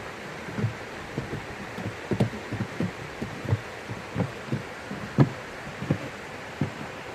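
Footsteps while walking: irregular low thuds at a walking pace, about two or three a second, some heavier than others, over a steady hiss.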